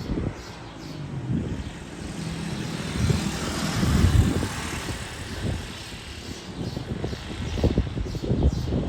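Propeller aircraft flying over, its engine noise growing to a peak about four seconds in and then fading. Wind buffets the microphone throughout.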